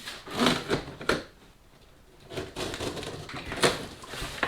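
Packaging being handled and crumpled as a car part is unwrapped: irregular rustling and crinkling, with a few sharp crackles near the start, a short pause, then steadier crinkling with a sharp snap about three and a half seconds in.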